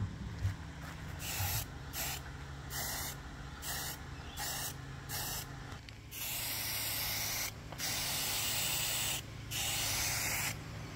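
Aerosol spray-paint can spraying a gloss topcoat: a string of short hissing bursts, then three longer sprays of about a second and a half each in the second half.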